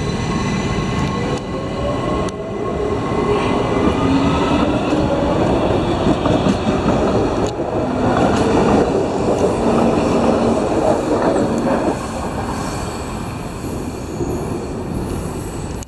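Washington Metro 5000-series subway train pulling out of the station, its traction motors whining upward in pitch as it gathers speed over rumbling wheel and rail noise. The sound eases off toward the end as the train draws away.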